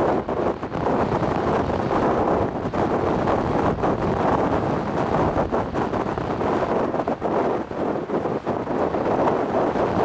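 Strong wind buffeting the microphone: a loud, gusty rumble that rises and falls without letting up.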